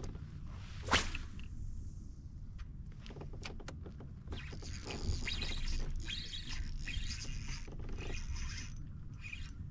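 A spinning rod whipping through a cast about a second in, with a short swish as the line flies out. From about four seconds in comes several seconds of uneven hissing and rustling noise.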